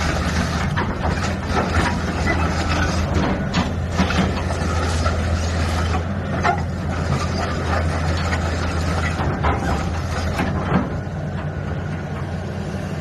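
Diesel engine of a Liugong 925D crawler excavator running steadily, with scattered short clicks and knocks.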